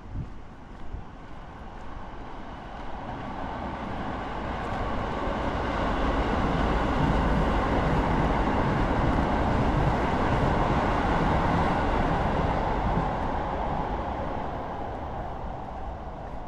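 A Keisei Main Line electric train passing, growing louder over several seconds, loudest in the middle, then fading away, with a faint steady whine over the rumble.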